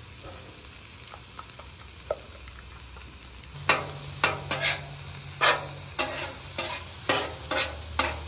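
Sliced steak sizzling on a hot Camp Chef Gridiron flat-top griddle. A few soft clicks at first, then from about three and a half seconds in a metal spatula scrapes and turns the meat across the steel plate, about twice a second.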